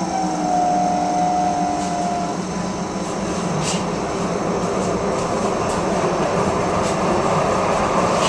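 Green üstra light-rail car passing close by on the adjacent track: steady rolling noise of steel wheels on rail. A steady whine sounds for the first two seconds, then the rolling noise grows, with a few sharp clicks.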